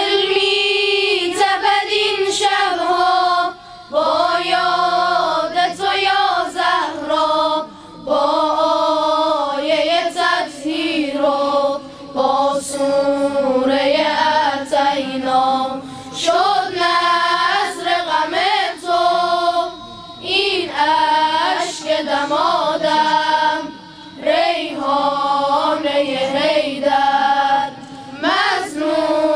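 Boys' choir singing a devotional eulogy song (madih) together through a microphone, in sung phrases separated by short pauses about every four seconds.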